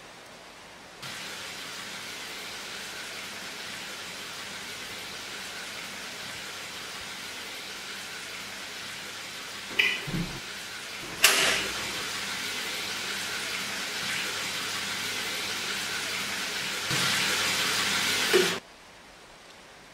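Steady hiss of water running from a bathroom tap, with a couple of soft knocks and then a sharp click of a wall switch about eleven seconds in. The water gets louder near the end and stops abruptly as the tap is turned off.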